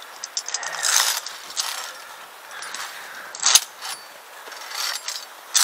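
Via ferrata lanyard carabiners clinking and scraping along the steel safety cable as the climber moves, a run of irregular metallic clicks and scrapes, the loudest about three and a half seconds in.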